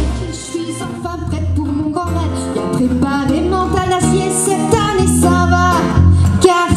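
A woman singing a French pop song live into a handheld microphone, over band backing with guitar and bass.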